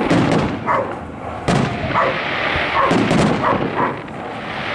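Aerial fireworks shells bursting in a series of booms with rumbling tails, the sharpest crack about one and a half seconds in.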